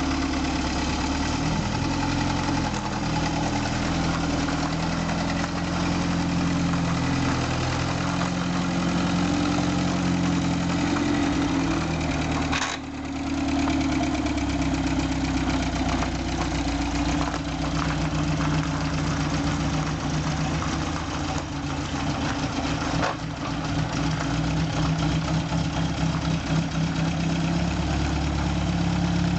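1939 MG TA's four-cylinder engine idling steadily, dipping briefly once about halfway through.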